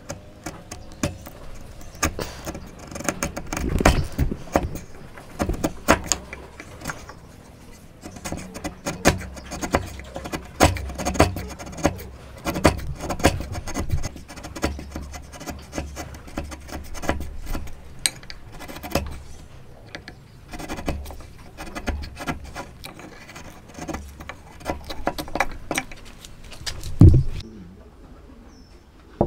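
Wood chisel paring out a dovetail socket in hardwood by hand: irregular scraping and crackling as wood fibres split away in chips. Near the end there is one heavy knock as the block is set down on the workbench.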